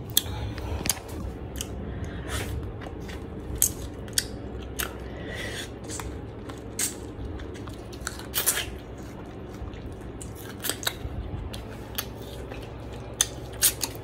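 A person chewing food right at the phone's microphone: irregular mouth clicks over a steady low hum.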